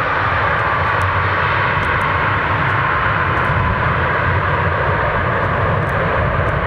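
Bombardier Dash 8 Q400 turboprop airliner running its engines and propellers at high power as it rolls down the runway. It is a loud, steady drone, and its whine drops slowly in pitch as the aircraft moves away.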